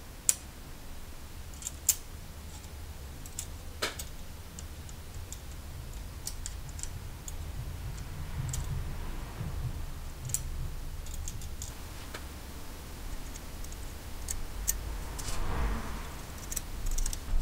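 Steel tweezers and a watchmaker's screwdriver clicking against the brass case of a carriage clock as small parts and screws are fitted: scattered sharp clicks at irregular intervals over a low steady rumble, with a brief rustle near the end.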